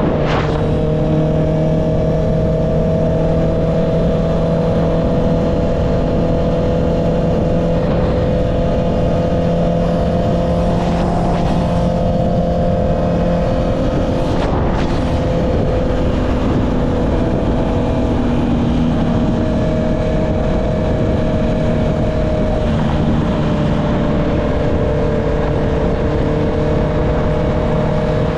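Honda CB650R's inline-four engine running through an Akrapovic exhaust at a fairly steady cruising speed, its pitch drifting only slightly up and down.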